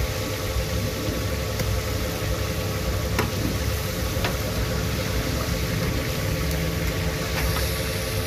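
A steady motor hum over a low rumble, with a couple of sharp clicks about three and four seconds in.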